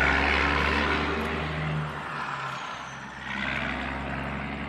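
Truck engine sound running steadily with a low hum, swelling louder at the start and again about three seconds in, laid over a plastic toy dump truck.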